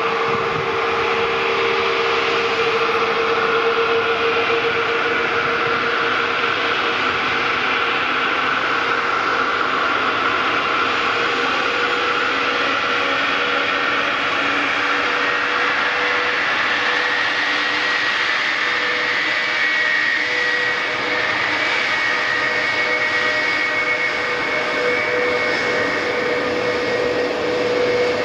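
Boeing 787-8 Dreamliner's jet engines running loud and steady, with a broad rushing noise and a whine whose upper tone rises in pitch about halfway through.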